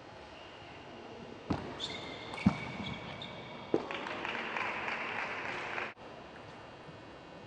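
Table tennis rally: three sharp clicks of the celluloid ball off bats and table, about a second apart, with high squeaks of shoes on the court floor between them. Then about two seconds of even, hiss-like hall noise that cuts off abruptly.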